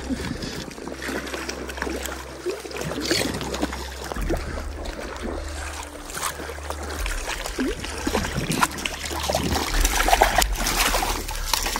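Small waves lapping and sloshing against shoreline rocks. Near the end a hooked Lahontan cutthroat trout splashes at the surface as it is drawn in.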